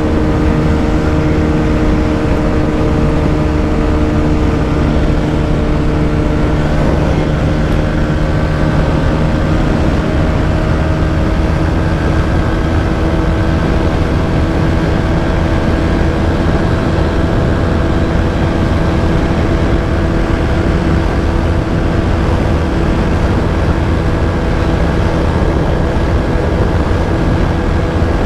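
TVS Apache RTR 160 4V's single-cylinder engine held at full throttle near its top speed of about 136 km/h: a steady high engine note over heavy wind rush.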